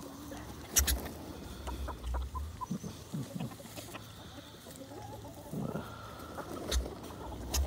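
Domestic turkeys giving soft clucks and short calls close by, with a few sharp clicks, the loudest about a second in.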